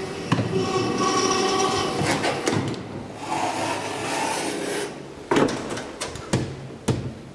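Schindler elevator doors sliding with a rubbing whir, broken by several sharp clunks and knocks.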